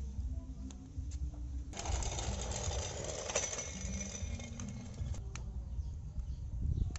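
Small electric drive motor and plastic gears of a Huina RC road roller whirring under load as it tows an RC dump truck on a cable. From about two seconds in, a louder hissing, scraping rattle lasts some three seconds, with a few sharp ticks.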